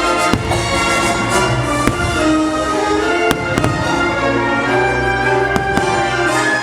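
Fireworks going off in several sharp bangs at uneven intervals, over loud orchestral show music with strings and brass.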